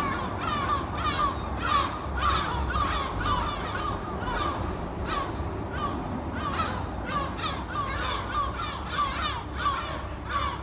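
Seagulls calling: many short, harsh cries repeated and overlapping, over a steady low rush of background noise.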